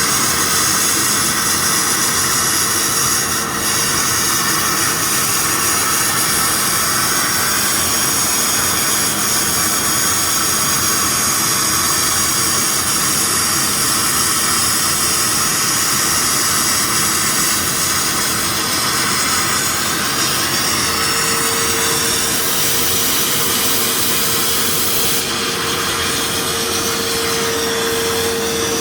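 Akwilon CNC automatic sandblasting machine running: a steady, high-pitched hiss of compressed-air abrasive blasting. A steady whine joins about two-thirds of the way through and grows louder.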